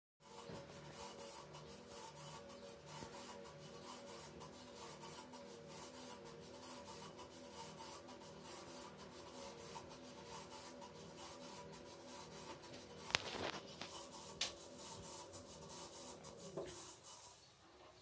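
Gorenje front-loading washing machine turning its drum with a steady grinding, rasping noise that swells and fades in an even pulse, like a coffee grinder: the owner puts it down to a failing drive motor, already the machine's third. Two sharp clicks come about two-thirds of the way through, and the noise dies away near the end as the drum stops.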